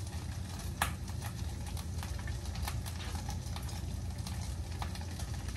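Tofu frying in an oiled pan on the stove, a faint steady sizzle over a low hum, with a few light clicks of a spoon on plates as ground turkey is served; the sharpest click comes about a second in.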